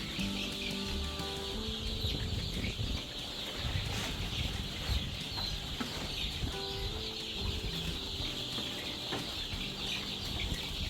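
A flock of month-old layer chicks calling together: a dense, continuous chatter of peeps and clucks.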